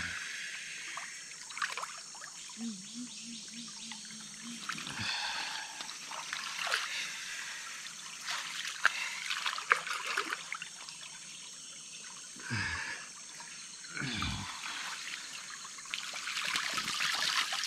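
Water trickling and splashing, with scattered small knocks and clicks, as a fish trap is handled in a stream.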